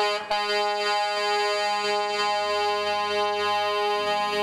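Multi-note air horn on a parade semi truck sounding one long, steady chord that starts suddenly, with a short knock just after it begins.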